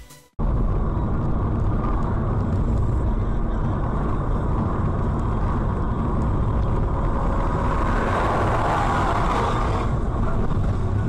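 Dashcam recording of a car driving: steady engine and road noise heard from inside the cabin. The noise swells louder and brighter for a couple of seconds between about 8 and 10 seconds in.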